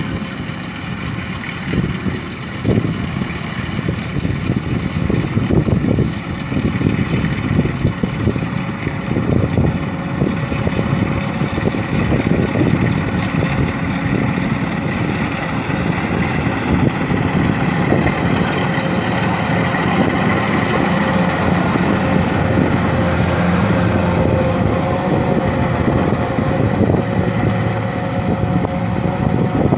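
An engine running steadily, with a constant hum and an uneven low rumble.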